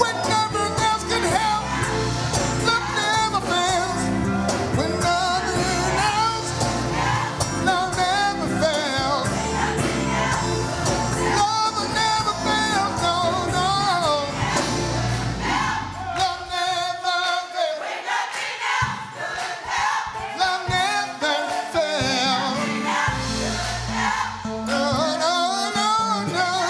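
Gospel singing with a choir over a band with a steady beat. About two-thirds of the way through, the bass and drums drop out for several seconds, leaving the voices, and then come back in.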